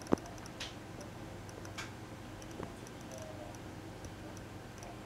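Steady low hum with a few sharp clicks scattered through it, the loudest just after the start, and faint high ticks.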